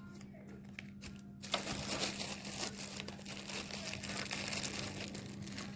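Dense crinkling and rustling of something dry being handled, starting about a second and a half in after a few faint clicks, over a steady low hum.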